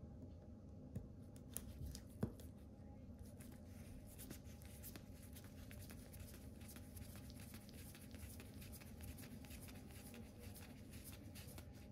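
Faint handling noise of fingers on a small metal camera lens: a few sharp clicks in the first two seconds, then a fast, scratchy ticking that runs on until just before the end.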